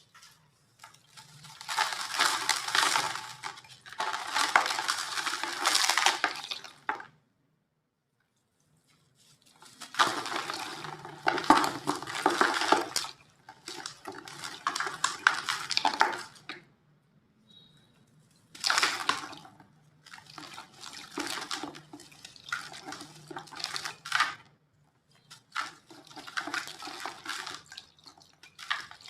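Gritty little chunks of dry white cement being crumbled and crushed by hand. They give a crisp, crunchy crackle in five spells of a few seconds each, with short quiet pauses between.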